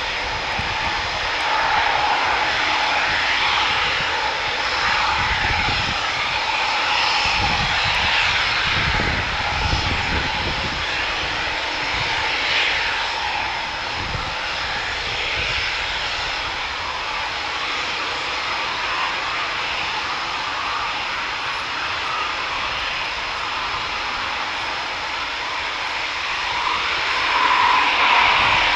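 Eurofighter Typhoon's twin EJ200 turbofans running at taxi power as the jet taxis past: a steady rushing jet noise with a high whine, swelling near the end.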